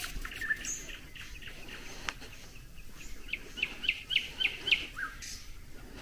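Wild birds singing: scattered high chirps, then a rapid series of short down-slurred notes, about four a second, a little past halfway.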